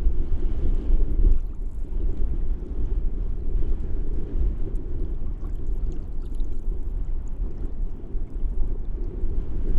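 Gusty wind buffeting the microphone with a deep, uneven rumble, with faint scattered light clicks above it.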